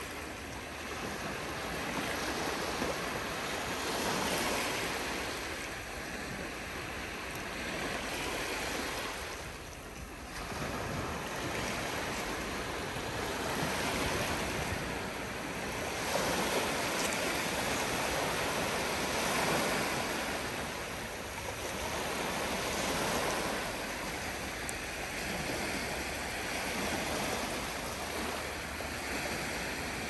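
Surf of the calm Black Sea: a steady rush of water that swells and ebbs every few seconds as small waves break and wash onto the shore.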